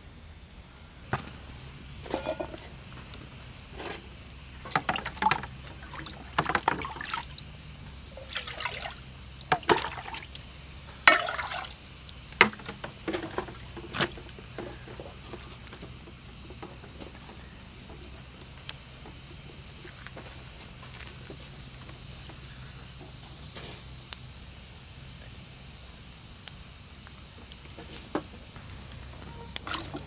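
Fresh beans being shelled by hand and dropped into a ceramic bowl: a run of clicks and short rustling clatters over the first half. After that only occasional sharp crackles from a wood fire.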